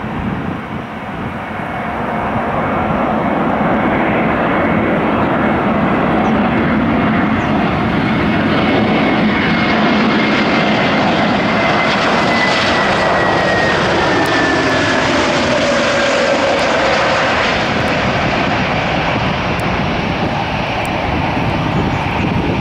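Airbus A321neo's Pratt & Whitney PW1100G geared turbofan engines on landing approach, passing close. A loud, steady jet sound builds over the first couple of seconds, with a whine that slides down in pitch as the aircraft passes.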